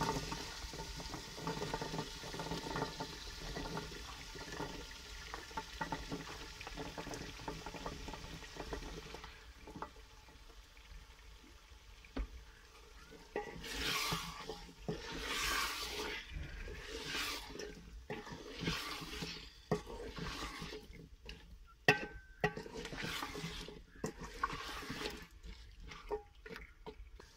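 Potato cubes dropping into a hot aluminium pot of frying masala, sizzling for the first several seconds. From about halfway in, a wooden spoon stirs and scrapes them round the pot in repeated sweeps about every second and a half, with a few sharp knocks.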